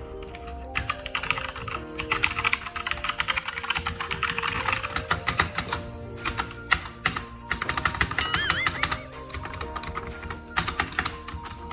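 DareU EK87 mechanical keyboard with red linear switches, its keys pressed rapidly and repeatedly in an irregular stream of clacks, as a sound test of the switches.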